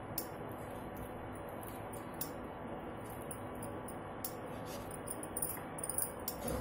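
Butter in hot oil in a nonstick pan, stirred with a wooden spatula on an induction cooktop: a steady low hiss with a few faint light clicks.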